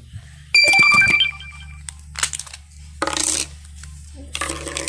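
A loud metallic clatter with a ringing tone that fades over about a second, starting about half a second in, followed by a brief rustle about three seconds in.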